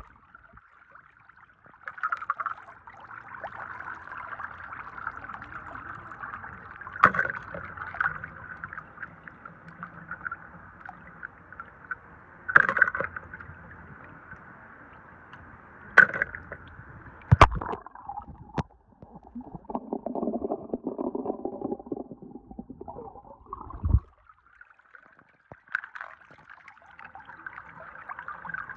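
Water running and splashing while small die-cast toy cars are rinsed by hand, with several sharp clicks of the metal cars knocking together or being set down. The water sound changes to a lower, rougher splashing for a few seconds past the middle, then briefly stops.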